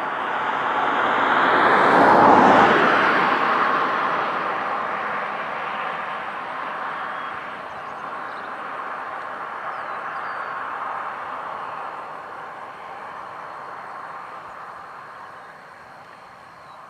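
A passing motor vehicle: road noise that swells to a peak about two seconds in, then slowly fades away.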